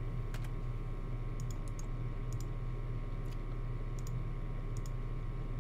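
Computer keyboard keys clicking in scattered, irregular taps, a few in quick succession, over a steady low electrical hum.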